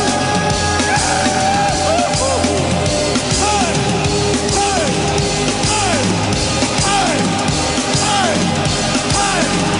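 Loud rock music with repeated bending notes.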